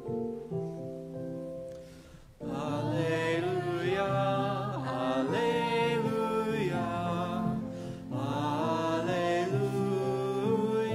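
Church music: held instrumental chords fade out, then about two seconds in a singing voice comes in over the accompaniment with a slow, gliding melody.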